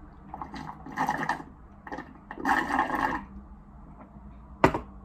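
Slurping a partly melted fruit smoothie through a straw, two rough sucking bursts, then a single sharp knock near the end.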